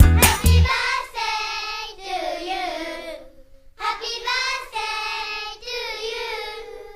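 A beat-heavy song cuts off less than a second in, and a high voice goes on singing alone in two drawn-out phrases with a short break between them, fading out at the end.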